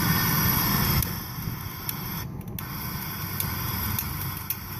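Gas hissing from a flame-effect torch, loud for about the first second and then cut back sharply to a quieter steady hiss. Faint irregular ticks come through in the second half.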